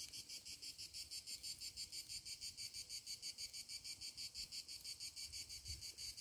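Insects singing in grass, a faint, high-pitched chirping in a fast, even pulse of several beats a second.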